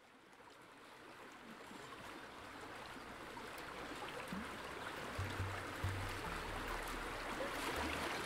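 Opening of a background music track fading in: an even wash of noise swells steadily, and low bass notes enter about five seconds in and repeat.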